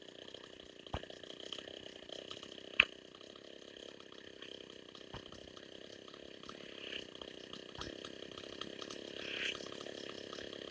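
Two-stroke chainsaw engine running steadily, with a few sharp knocks over it, the loudest about three seconds in.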